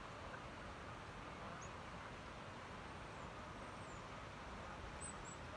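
Faint, steady outdoor background noise with a few brief, high-pitched bird chirps scattered through it.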